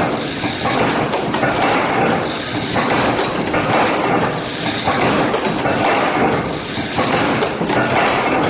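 Automatic steel-wire D-ring and hook making machine running, a continuous metallic clatter of its forming tools bending steel wire. The clatter swells and dips in a regular cycle a little over a second long.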